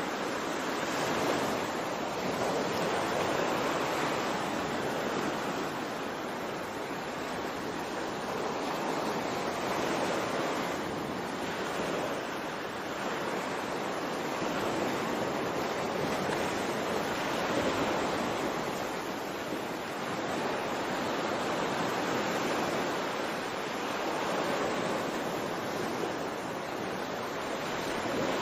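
Ocean waves washing in a steady rushing hiss that swells and eases every few seconds.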